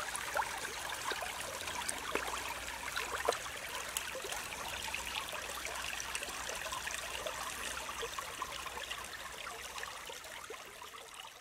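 Stream water running and trickling steadily, fading out near the end.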